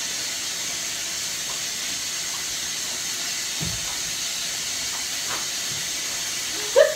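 Water running steadily in a bathtub shower, an even hiss, with a faint knock a little past halfway.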